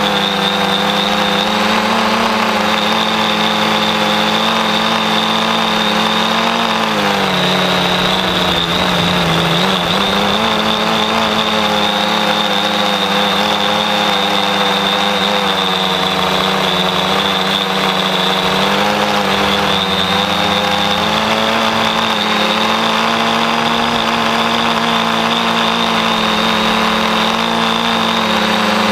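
Dart 450 quadcopter's four electric motors and propellers heard from the onboard camera: a steady buzzing hum with a high whine on top. The pitch dips and wavers for a few seconds about a quarter of the way through as the motor speed changes, then steadies again.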